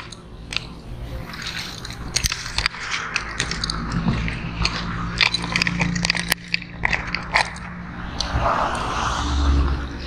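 Plastic grocery bags crinkling and sandals scuffing on concrete pavement as people walk, in many short crackles and clicks. A motorcycle-sidecar tricycle's engine hums through the middle, and a vehicle passes with a rumble near the end.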